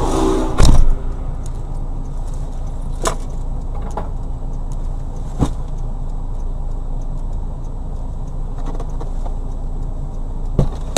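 Car running steadily with a low rumble, with a sudden loud bang just under a second in and a few light knocks later.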